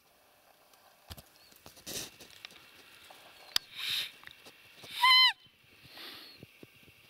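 One short, loud, whistle-like call about five seconds in, held level and then dropping sharply in pitch at its end. Soft breathy rustles and a few faint clicks come and go around it.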